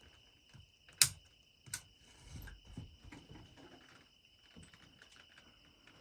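Steady high-pitched insect trill, with two sharp clicks a little under a second apart about a second in; the first click is the loudest sound.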